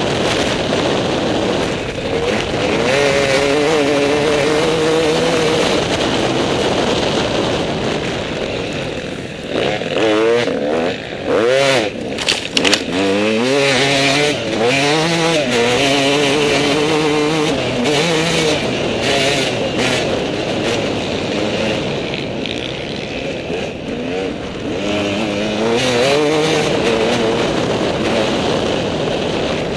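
Dirt bike engine revving hard under way, the pitch climbing and dropping through gear changes. Between about nine and thirteen seconds in, the revs swing up and down quickly several times, as through a rutted corner.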